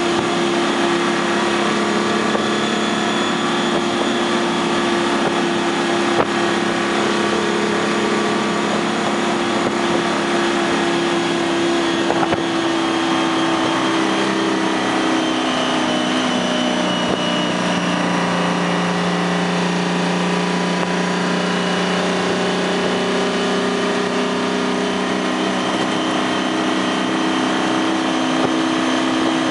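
6V53 Detroit Diesel, a two-stroke V6 diesel, heard from inside the truck's cab, running steadily under load at road speed. Its pitch sags a little around the middle and comes back up near the end.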